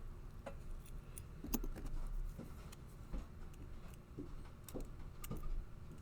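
Scattered light metal clicks and clinks from a Master Lock No. 19 padlock and its parts being handled, a few small taps spread over several seconds.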